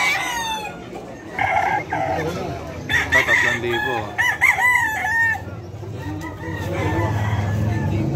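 Several gamecocks crowing over one another, with clucking in between. A steady low hum comes in under the last few seconds.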